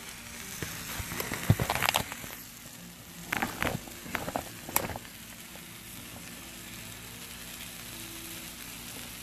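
T-bone steaks sizzling faintly on a flat-top griddle over a wood fire, with a few sharp clicks and knocks in the first five seconds.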